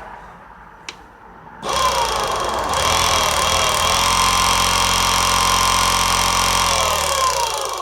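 Electric motor running on a 24-volt battery source: it starts abruptly about a second and a half in, wavers up to speed, then runs at a steady high whine. Near the end it winds down with a falling pitch as the power is cut. A single click comes just before it starts.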